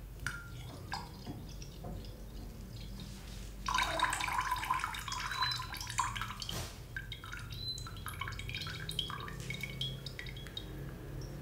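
Cooled sugar syrup being poured into a glass pitcher of lemon juice. A few trickles and drips come first, then a steady pour starts about four seconds in and lasts about three seconds, followed by scattered drips.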